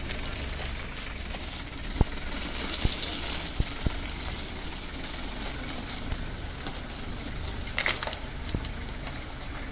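Kubota tractors' diesel engines running under a rough, steady noise, with a few sharp knocks between two and four seconds in and a short louder rustle near the end.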